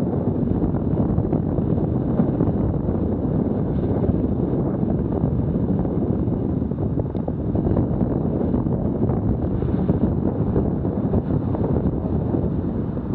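Wind buffeting the microphone of a bicycle-mounted Garmin VIRB action camera while riding, a steady low rumble with no distinct events.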